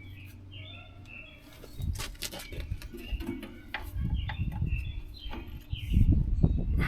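Motorcycle rear axle being worked out of the wheel and swingarm: irregular metal clicks and knocks that start about two seconds in and build to heavier thumps near the end, with the axle stuck and coming out a little at a time.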